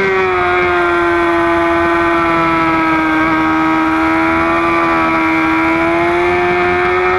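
Sport motorcycle engine held at high revs while the bike is ridden around a racetrack, heard from a camera mounted on the bike, over a steady rush of wind. The pitch sags a little about a second in, stays nearly level through the corner and climbs slightly near the end.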